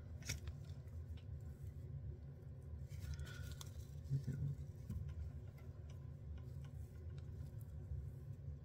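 Faint handling noises from fingers working fly-tying materials on a hook in a vise: light clicks, ticks and rustles over a low steady hum.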